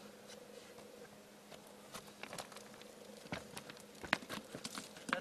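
Footsteps crunching and clicking on loose stones and gravel as a man hurries over a rocky slope. The irregular steps begin about two seconds in.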